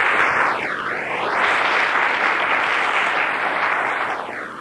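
Congregation applauding, a steady clatter of many hands that begins to die away near the end.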